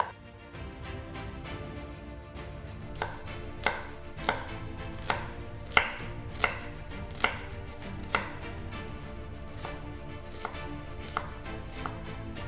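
Kitchen knife dicing a red onion on a chopping board: single sharp knife strikes, after a pause of nearly three seconds, then about one every 0.7 seconds for several seconds, and a few more scattered near the end.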